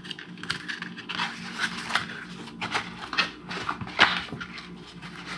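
Handling of a leather pen pouch as a notebook is slipped into its inner pocket: irregular soft scrapes, rustles and light taps of leather and paper, with one sharper knock about four seconds in.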